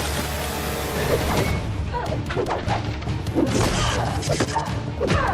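Fight-scene soundtrack: dramatic score music under a crash in the first second and a half, followed by a run of punches and thuds.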